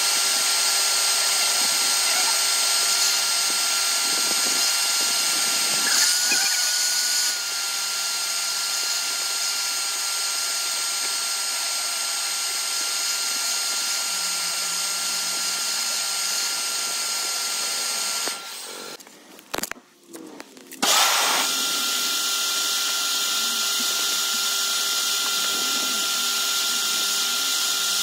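Car-wash station vacuum cleaner running, a steady high-pitched whine and rush of air through the suction hose as it cleans dust out of a car. Its sound drops away for about two seconds near two-thirds of the way through, then the motor spins back up and runs on.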